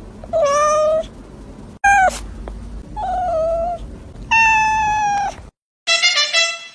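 A cat meowing four times: the second call is short and falls in pitch, and the last is the longest, held steady. Music starts near the end.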